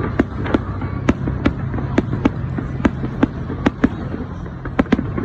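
Fireworks exploding in a rapid, irregular run of sharp bangs, about a dozen in five seconds, over a steady low hum and background noise.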